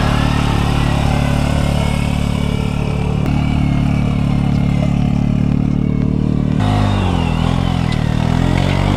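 ATV engine running hard under heavy load. It holds a steady pitch, then rises and falls unevenly about two-thirds of the way in as the revs change.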